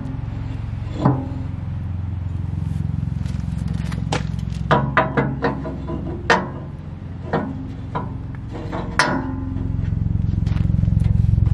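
Kubota BX2380 compact tractor's three-cylinder diesel idling steadily, getting louder near the end, with a run of sharp metal clicks and taps as a bolt-on hook is handled against the steel loader bucket.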